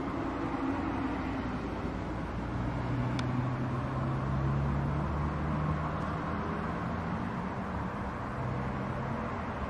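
Steady rumble of a passenger jet's engines as it approaches, with a deeper hum joining a couple of seconds in.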